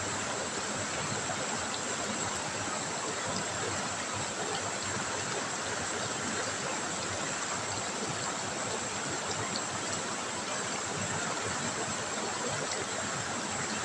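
River water trickling and running steadily.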